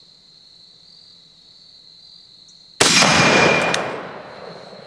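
A .30-06 M1 Garand fires a single shot about three seconds in: a sharp crack whose tail dies away over a second or so. Right after it comes a short ringing ping, the empty en-bloc clip ejecting after the last round. Crickets chirp steadily underneath.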